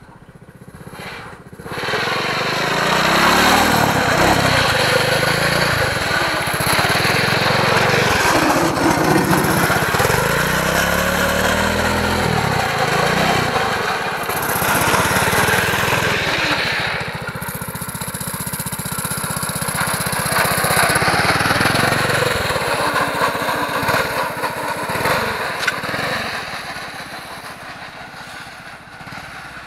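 Predator 212 single-cylinder four-stroke engine on a drift trike, revving up and down as the trike drives around, its pitch rising and falling again and again. It fades away near the end.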